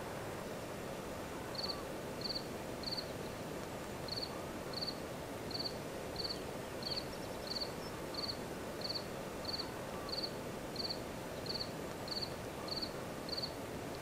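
An insect chirping in the bush: a regular series of short, high chirps, about three every two seconds, beginning about a second and a half in with a brief pause near four seconds. Beneath them runs a steady low background noise.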